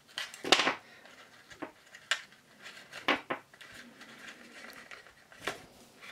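A few short rustles and taps of cardstock and ribbon being handled as a bow is tied on a craft mat, the loudest about half a second in.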